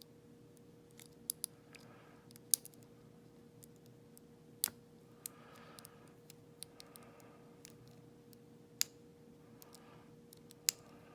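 A lock pick and tension wrench working the pin stack of a Schlage lock: scattered, irregular sharp metallic clicks, a few of them louder, with soft scratching between them. These are typical of serrated pins catching as they are set. A steady low hum runs underneath.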